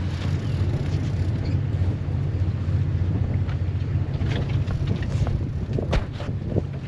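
Small fishing boat's engine running steadily with a low hum, with wind on the microphone and a few light knocks near the end.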